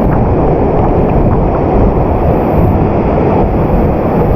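Waterfall cascade pouring hard: a loud, steady rushing of falling water.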